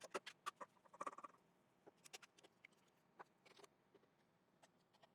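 Near silence with a few faint, scattered clicks and light knocks, most of them in the first second or so: a walnut bowl blank being handled as it comes off the lathe's worm screw.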